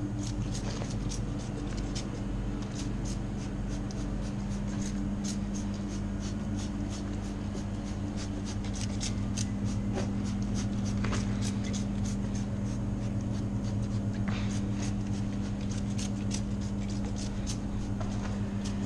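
Short, irregular scratchy strokes of hand scrubbing on a dirt bike, over a steady low motor hum.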